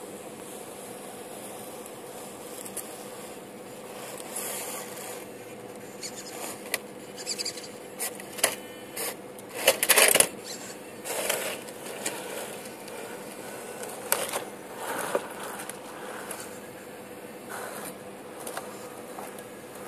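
RC rock crawler on 1.9-inch wheels driving over snowy concrete rubble: the thin, steady whine of its electric motor, with clicks, crunches and knocks from its tyres and loose rocks that come thicker and louder toward the middle, the loudest cluster about halfway through.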